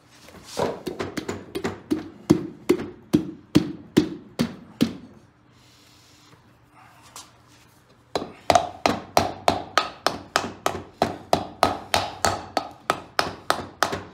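Rapid light taps, about three a second, in two runs with a pause of a few seconds between: the cast-iron cylinder of a Kohler Magnum 18 engine being tapped down over the piston and rings.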